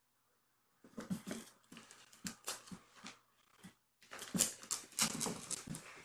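A kitten dragging a plush floor mat across a laminate floor: scuffing and scraping in a string of short bursts, with a brief pause about four seconds in and the loudest scrapes near the end.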